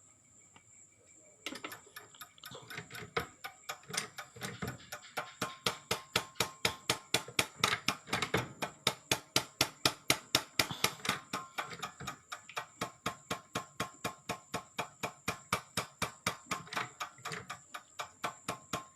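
Diesel fuel injector firing on a calibration tester: a steady run of sharp clicks, about four a second, starting a second and a half in.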